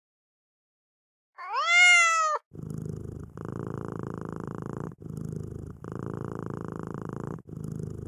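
A cat meows once, a rising-then-falling call about a second long, then purrs steadily. The purr breaks off briefly every second or two between breaths.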